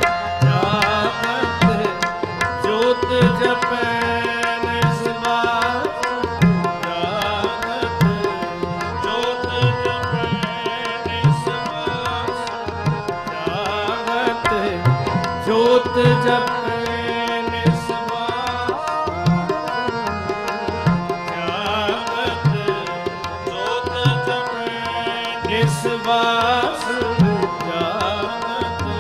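Kirtan music: two harmoniums hold steady chords under a tabla playing a regular rhythm of about two strokes a second, with the bass drum's strokes sliding in pitch.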